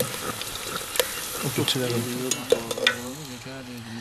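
Food sizzling in a cooking pot while a metal spoon stirs it, clinking sharply against the pot a few times. A voice talks in the background through the second half.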